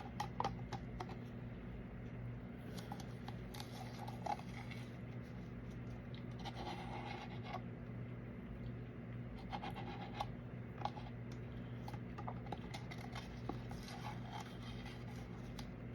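Intermittent light scratching and scraping with small clicks, from resin-crafting materials being handled on a work table, over a steady low electrical hum.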